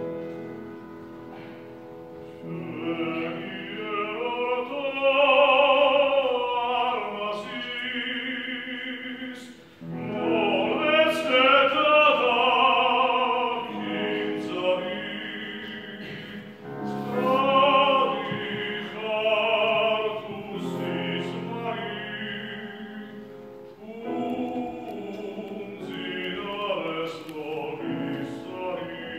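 Male classical singer performing an art song with grand piano accompaniment, in several sung phrases that swell to loud peaks and break briefly about ten seconds in and again near the end.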